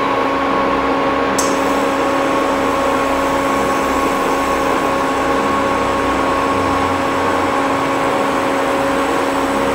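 Induction cooker heating an empty-sounding pan: a steady electrical hum with its cooling fan running. A faint high whine joins about a second and a half in, as the heat is turned up.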